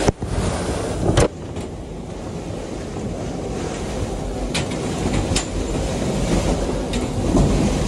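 Storm-force wind rushing steadily around a sailboat, with scattered sharp knocks and bangs; the loudest comes about a second in.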